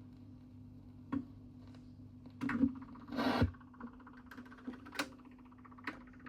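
Turntable playing a 45 rpm vinyl record past the end of the music: stylus clicks about every second and a quarter, roughly once per turn of the record, and two short rubbing, scraping noises in the middle, over a steady low hum.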